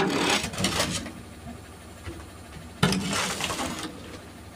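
A shovel scraping wet iron ore fines off the steel bed of a tipper truck, in two strokes of about a second each: one at the start and one about three seconds in.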